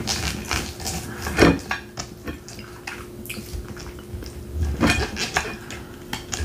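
Steak knife and fork cutting a bone-in cowboy steak on a plate: the knife sawing and the cutlery scraping and clinking against the plate, with louder knocks about a second and a half in and again about five seconds in.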